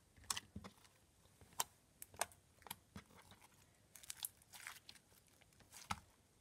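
Clear glitter slime made from glue and a Tide activator being squished and stretched by hand, giving irregular sticky clicks and pops.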